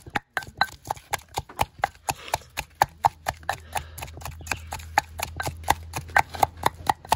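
Pestle pounding wet chillies in a clay mortar: a fast, steady run of knocks, about five a second.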